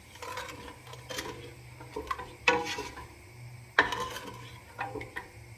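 A utensil stirring cream sauce in a pot, with a few sharp knocks against the pot. The two loudest come about two and a half and nearly four seconds in.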